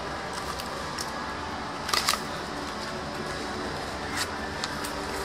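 Plastic shrink-wrap being cut and peeled off a trading-card box, then the box opened and its foil-wrapped packs handled: crackling plastic and sharp clicks, loudest about two seconds in, over a steady background hum.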